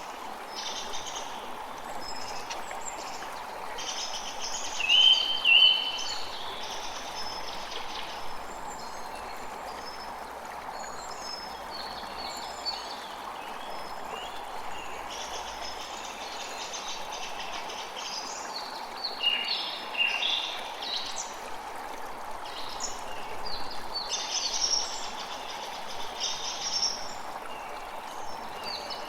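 Birds chirping and calling over a steady rush of running water. Two short, loud notes stand out about five seconds in, with busier bursts of calls later.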